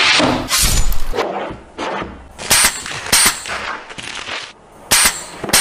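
Metal lids clanging: a series of about six sharp metallic hits at uneven intervals, some ringing on briefly.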